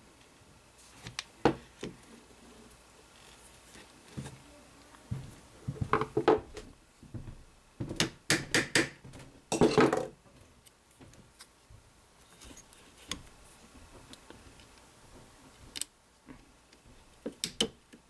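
Scattered small metallic clicks, clinks and knocks of steel pins and trigger-group parts being handled and worked into an AR-15 lower receiver. The busiest run of clicks comes about eight to ten seconds in.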